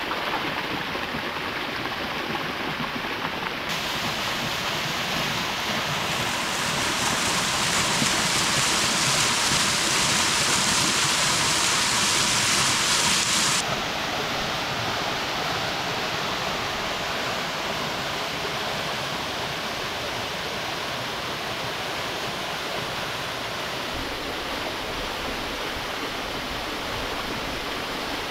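Running water, a steady rush like a stream or water pouring. It grows louder and brighter in sudden steps about four and six seconds in, then drops back abruptly about halfway through.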